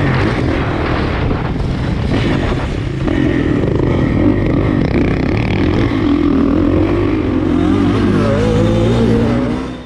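Motorcycle engine running, its pitch rising and falling, then fading out just before the end.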